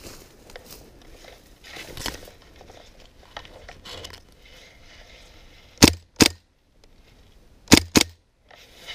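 Gas blowback airsoft gun fired in two quick double shots, each a loud sharp crack, about 6 s and 8 s in, with faint rustling of gear between them.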